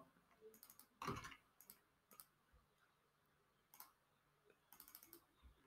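Near silence with a few faint, scattered clicks from a computer mouse and keyboard, including a quick little run of clicks near the end.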